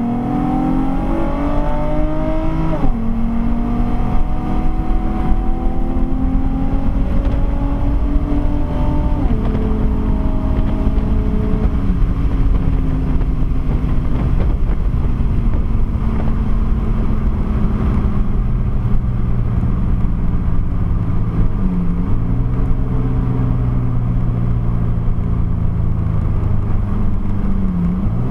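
Modded Nissan sedan engine heard from inside the cabin under hard acceleration. Its pitch climbs and drops at an upshift about three seconds in, climbs again to a second upshift about nine seconds in, then eases off to a steady cruise over constant road noise.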